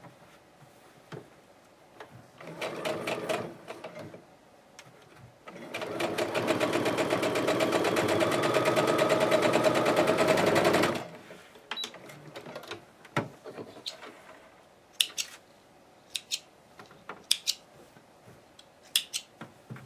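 Electric domestic sewing machine stitching a seam through layered patchwork fabric: a short run of stitches, then a longer run of about five seconds with the needle's strokes coming fast and evenly. A few sharp clicks follow near the end.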